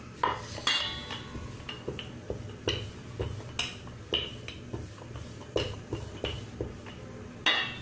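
Wooden rolling pin rolling out puri dough on a ceramic tile board, with a series of sharp, irregular clacks as the pin knocks against the hard tile; the loudest comes near the end.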